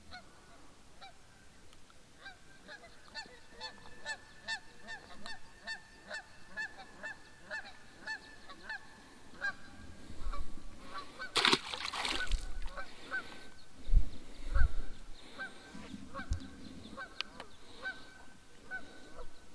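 A flock of geese honking over the water, in quick repeated calls that are densest in the first half and grow sparser later. About halfway through comes a brief loud rush of noise, followed by a couple of low thumps.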